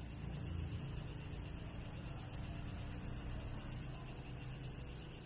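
Steady background noise: an even high-pitched hiss and a low hum, with no distinct sudden event.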